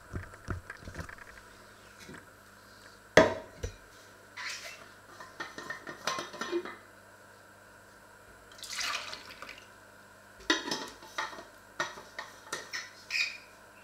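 Pots, lids and dishes being handled: scattered clinks and knocks, the sharpest about three seconds in, with a couple of short splashes of water.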